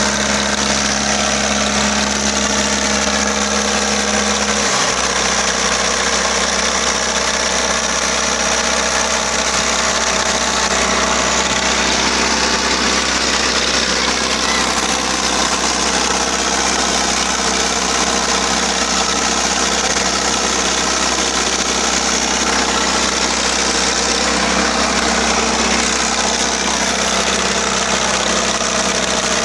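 Diesel tractor engines of a John Deere and a Mahindra Arjun running steadily under load as the two tractors pull against each other in a tug-of-war. The engine note shifts about five seconds in.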